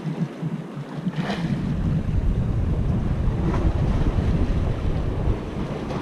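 Wind buffeting the camera's microphone, a low rumble that builds about a second and a half in and keeps up, over waves washing against the jetty rocks.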